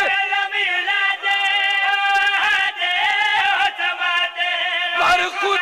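A man singing a qaseeda, a devotional recitation, in long held notes that waver and glide from one pitch to the next.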